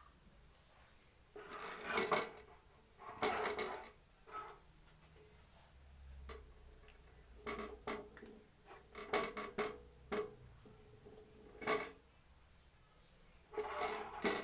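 Kitchen cookware and utensils being handled: a series of separate knocks, clinks and scrapes, some with a short ring, with a longer clatter at the start and another near the end.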